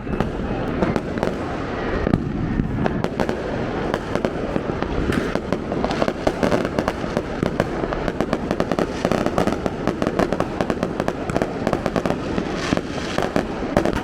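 Firecrackers going off in a dense, continuous stream of sharp cracks and pops, many each second.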